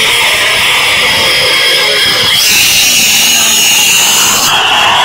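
Loud, steady rustling and scraping of a cat's fur brushing against the phone's microphone.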